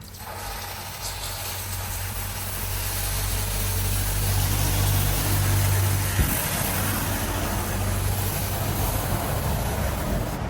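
A workshop machine running steadily, a low hum under a broad hiss, starting suddenly and growing louder toward the middle.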